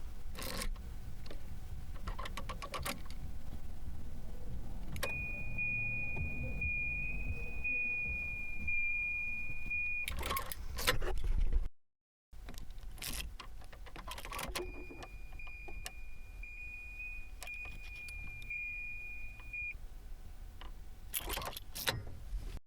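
Car keys jangling and clicking in a 1990 Volvo 240. Twice, a steady high warning tone sounds for about five seconds between the clicks.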